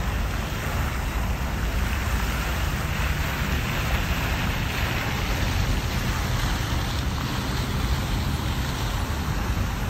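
Steady low rumble of a car driving slowly, with a rushing hiss of water spray from tall fountain jets alongside.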